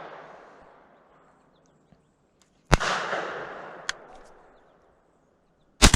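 Shotgun shots in an open field: a loud shot about three seconds in and another near the end, each trailing off in a long rolling echo over about two seconds, with a fainter sharp crack between them. The echo of a shot fired just before fades out in the first second.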